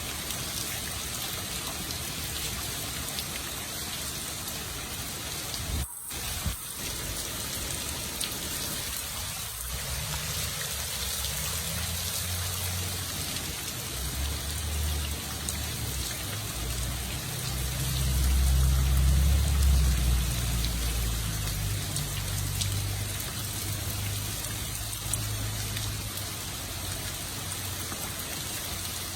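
Hard rain falling steadily, a dense hiss of drops striking surfaces. The sound dips out twice, briefly, about six seconds in. A low rumble swells and fades through the middle, loudest a little past halfway.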